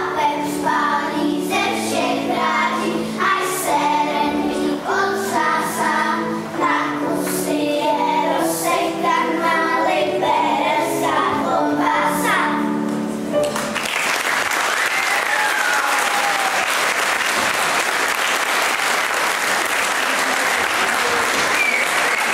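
A group of young children singing a song together with instrumental accompaniment, which ends about two-thirds of the way through. Audience applause follows, with a few voices calling out over it.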